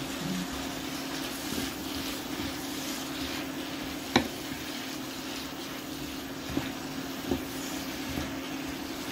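Veal pieces and onion chunks sizzling in a nonstick wok as a wooden spatula stirs them, over a steady low hum. A sharp knock of the spatula against the pan comes about four seconds in, with a few lighter knocks later.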